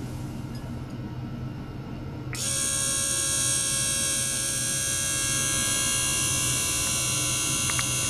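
Ultrasonic probe rig switching on: a steady high-pitched electric buzz made of many tones starts abruptly about two seconds in over a low hum, and then holds steady.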